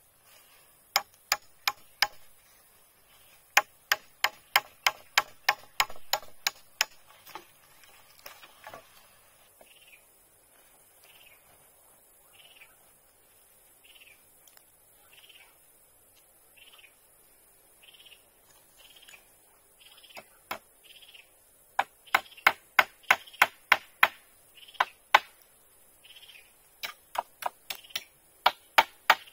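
Runs of sharp knocks, about four a second, from tools striking wood. In a quieter stretch in the middle, a soft higher sound repeats about once a second.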